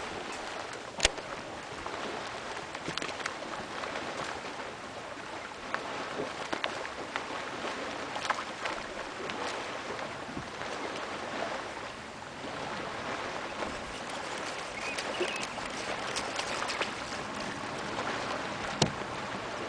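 Water lapping and sloshing against a small boat's hull, a steady splashy hiss with scattered sharp ticks and taps; one louder tap about a second in and another near the end.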